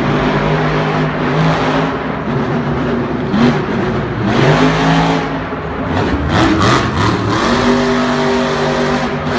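Monster truck's supercharged engine revving up and down as it drives, its pitch rising and falling several times.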